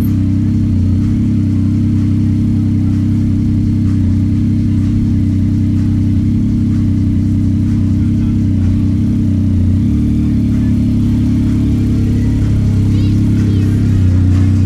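Yamaha MT-09 SP's three-cylinder engine running under way at a fairly steady pace, heard deep and muffled.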